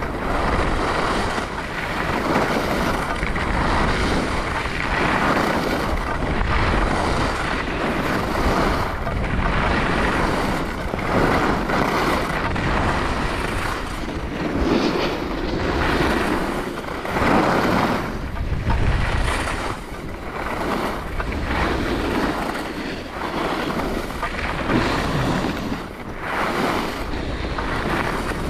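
Wind buffeting the microphone of a camera on a skier moving fast downhill, mixed with the hiss and scrape of skis on groomed snow. The rushing noise surges and eases every second or two.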